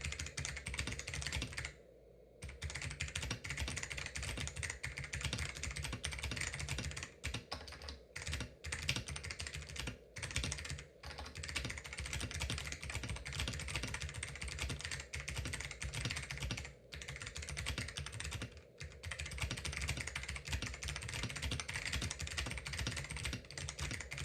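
Mechanical keyboard with Hua Jie clicky switches, plate foam and a tape mod, typed on steadily: a fast, dense run of clicky keystrokes with a short pause about two seconds in and a few brief breaks later.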